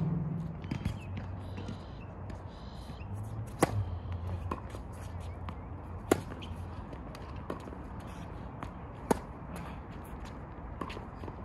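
Tennis balls struck by rackets in a singles rally: three loud, sharp hits roughly two and a half to three seconds apart, with fainter pops in between.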